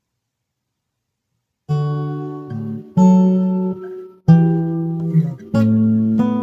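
Acoustic guitar strumming chords after a second or two of silence, a new chord about every second and a quarter, each left to ring.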